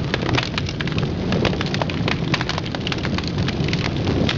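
A fire burning with a dense, steady crackle and many sharp irregular pops; it cuts off suddenly at the end.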